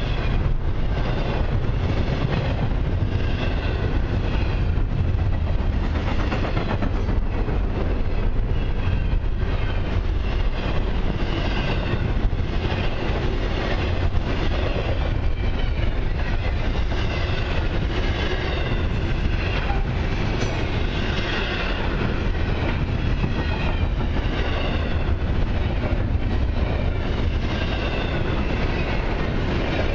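Double-stack intermodal freight train's loaded well cars rolling past close by: a steady rumble of steel wheels on the rails with an even, repeating clatter.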